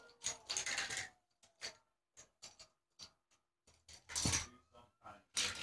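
Plastic toy cars clicking and clattering as they are handled and crashed together: scattered short clicks, with two louder noisy clatters, one near the start and one about four seconds in.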